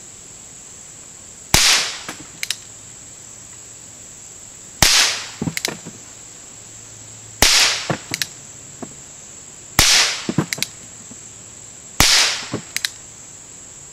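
Five shots from a Ruger Wrangler .22 single-action revolver loaded with Aguila Super Colibri low-noise rounds, spaced about two to three seconds apart. Each is a short sharp crack followed by a few lighter clicks.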